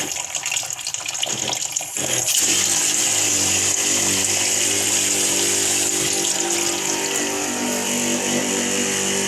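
Water pump running and water rushing through a portable water heater and shower system's lines, uneven for about the first two seconds, then steady with a low pump hum under the flow. The owner takes the unevenness for a bit of air getting into the line somewhere.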